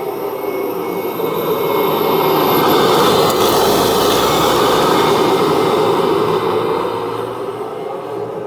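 Kirby Generation 3 upright vacuum running with its Carpet Fluffer attachment: a steady motor whir with a faint high whine. It grows louder a couple of seconds in and eases off near the end.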